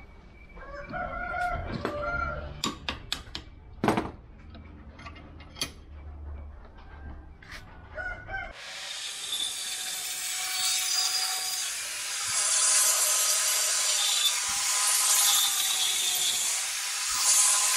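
Metal knocks and clanks as a steel rod is worked into a bench vise. About halfway through, an angle grinder with a cut-off disc starts cutting through the 3/4-inch 304 stainless steel rod: a loud, high grinding hiss with a steady whine.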